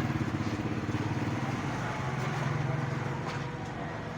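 A motor running steadily at idle, a low even hum with a fast flutter, with a faint tick about three seconds in.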